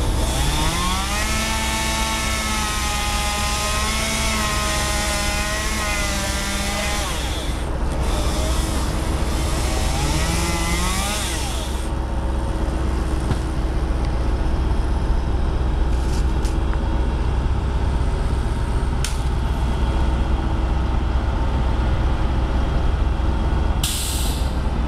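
Bucket truck's engine running with a steady low rumble. A motor revs up about a second in, holds for about six seconds and drops back, then revs again briefly around ten seconds in, with a few sharp clicks later.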